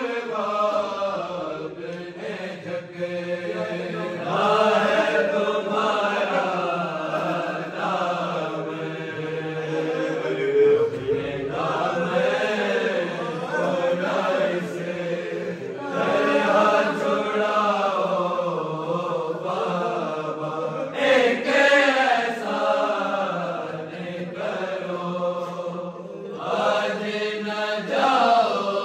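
Men's voices chanting an Urdu noha, a lament for Imam Ali, unaccompanied by instruments, the melody rising and falling in long sung phrases.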